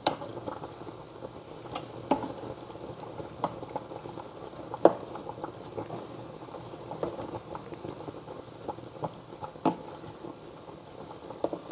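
Water simmering in a saucepan of potatoes, carrots and broccoli as a wooden spatula stirs the vegetables, with scattered sharp clicks every second or two.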